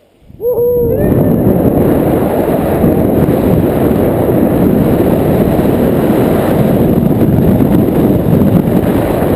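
Loud wind buffeting the microphone, a dense steady rush heaviest in the low range. It cuts in abruptly about half a second in, after a near-silent moment, with a brief sliding pitched tone at its start.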